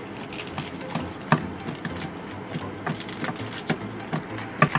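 Plastic candy wrapper being handled, giving irregular sharp crinkles and crackles over a steady background hiss.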